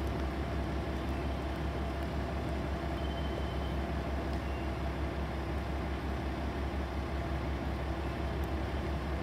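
KiHa 40 diesel railcar's engine idling steadily as it stands at the platform, a constant low hum.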